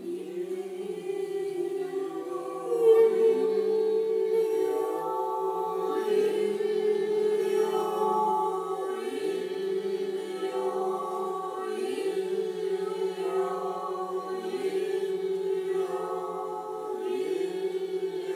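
Voices chanting the healing sound 'il-lio': a long held tone with the syllables gliding down and back up again about every two and a half to three seconds.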